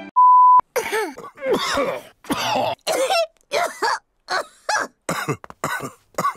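A short, steady electronic beep, then a rapid fit of about ten hoarse, voiced coughs from a cartoon character.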